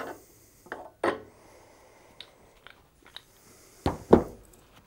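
Hand pipe-threading die being unscrewed and lifted off a freshly cut steel pipe thread, giving a scatter of small metallic clicks and knocks. The two loudest knocks come close together near the end.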